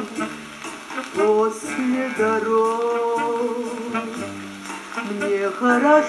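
A vinyl record playing through a Soviet Stereo RG5 radiogram: a song's music with a melody in long, wavering notes over accompaniment, before the sung words begin.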